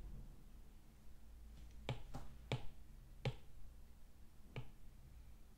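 About five faint, sharp taps of a stylus on a tablet's glass screen, spaced irregularly.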